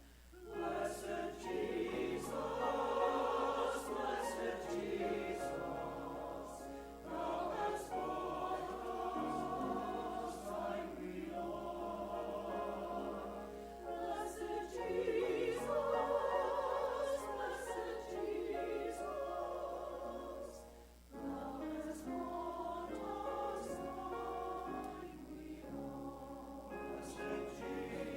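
A choir singing a hymn in sustained phrases with vibrato, pausing briefly between phrases.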